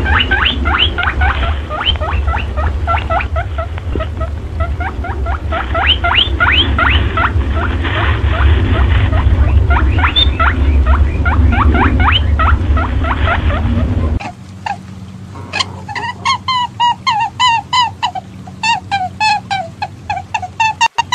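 Animal calls: a dense run of rapid, sweeping squeaky chirps over a low rumble that cuts off abruptly about 14 seconds in. After it comes a separate, quieter recording of short calls repeated rhythmically, several a second.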